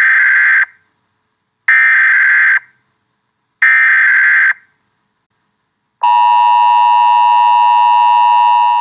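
Electronic buzzer sounding three short, identical buzzes about two seconds apart, then one long steady tone of about three seconds, like a countdown start signal.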